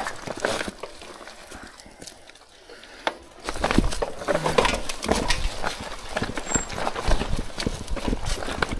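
Fat-tyre folding e-bike clattering over rough, rocky ground: tyres crunching on stones and the bike knocking and rattling in quick, irregular impacts. The clatter is lighter at first and becomes dense and loud about three and a half seconds in.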